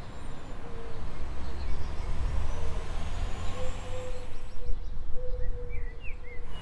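Street ambience: a steady low rumble of distant traffic, with a few short bird chirps near the end.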